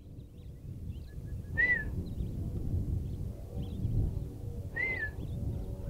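Wild birds calling outdoors: a short whistled note that rises and falls, heard twice about three seconds apart, with faint high chirps from other birds. A low rumble of wind on the microphone runs underneath.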